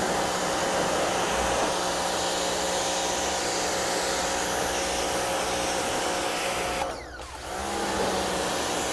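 Rock & Rocker 3000 PSI electric pressure washer running, a steady motor tone under the hiss of the water jet on concrete. About seven seconds in the motor stops suddenly as the trigger is let go, then starts again with a rising whine about half a second later.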